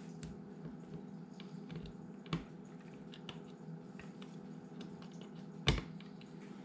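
Scattered light clicks and small knocks of dishwasher parts and wiring being handled during a pump and motor replacement, with two louder knocks, about two and a half seconds in and near the end, over a faint steady low hum.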